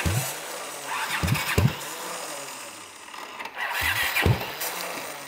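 Honda CX500 V-twin engine being cranked on its electric starter with starting fluid, catching in three short bursts of firing about every one and a half to two and a half seconds. It is the rust-filled, formerly seized engine struggling to run.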